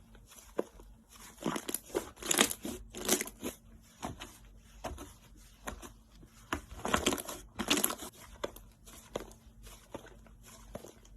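Slime being squeezed and worked by hand: irregular sticky crackles and squishes, in two louder clusters, one about two to three seconds in and another around seven to eight seconds, with quieter handling between.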